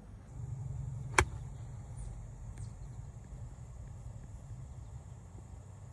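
A golf club striking the ball once, a single sharp crack about a second in, over a steady low rumble.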